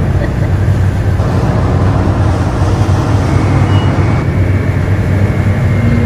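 Steady, loud low rumble of a passenger ferry's engines, with a faint thin high whine coming in about halfway through.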